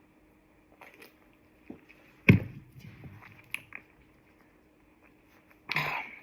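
Quiet mouth and eating sounds with a few faint clicks. A single sudden thump comes about two seconds in, and a short breathy noise near the end.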